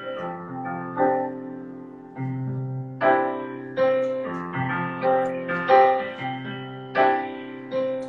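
Solo piano played on a digital keyboard: a slow, gentle piece of chords and melody notes. Each is struck and left to ring and fade, with new notes coming about once a second.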